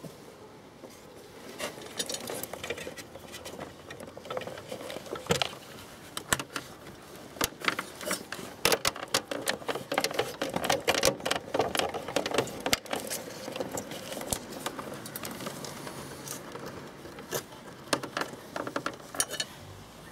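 Hands working a rubber headlight dust cover onto the back of a motorcycle headlight housing: rubbing and handling noise with many irregular sharp clicks and taps, busiest in the middle.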